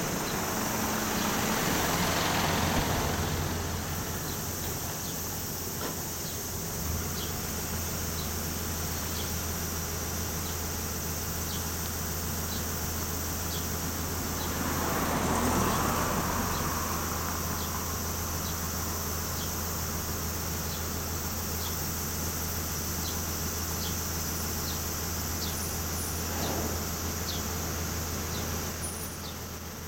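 Outdoor road ambience: vehicles pass by twice, swelling and fading, over a steady low hum, with faint short chirps repeating about once a second.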